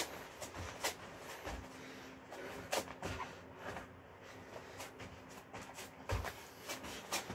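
Irregular thumps and taps of sneakered feet and hands landing on a foam exercise mat during burpees, with a couple of heavier low thuds among sharper taps.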